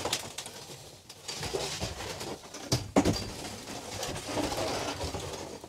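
Rustling, scraping and knocking as goose layout blinds with metal pole frames are handled and lifted out, with one sharper knock about three seconds in.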